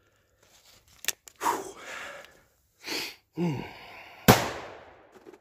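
A single shot from a .500 S&W Magnum revolver loaded with a 350-grain hollow point, about four seconds in: a sharp crack with a long echoing tail that dies away over about a second. Softer clicks and a short breath come before it.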